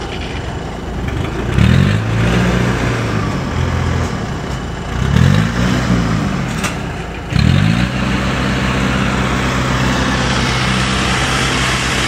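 Combine harvester's diesel engine revving up hard three times, the first two easing off, the third held at steady high speed as the machine drives over to tow.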